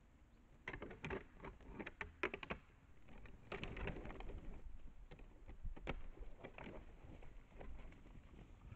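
Red deer stags' antlers clashing as they fight: irregular clusters of sharp clacks and knocks, starting about a second in and coming in rapid runs through the rest.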